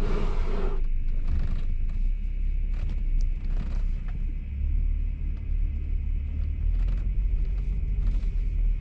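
Inside a moving Kia Cerato on a rough, potholed road: a steady low road rumble with scattered short creaks and clicks from the interior trim near the rear seat.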